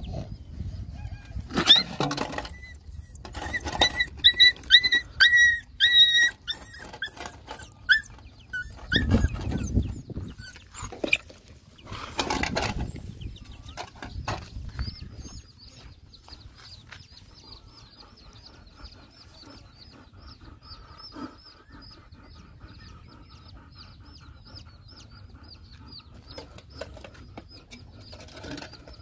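Puppies whimpering and yelping in short, high cries through the first several seconds, broken by a couple of louder rustling bursts. Later the sound drops to faint, rapid high chirps.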